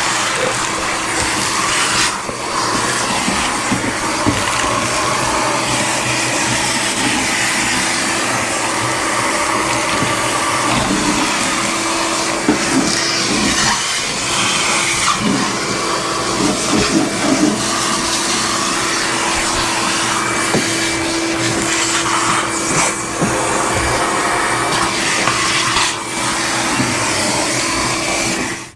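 Noisy shop vac running steadily, sucking up dirt and debris with scattered rattles and crackles as grit goes up the hose. It shuts off suddenly at the end.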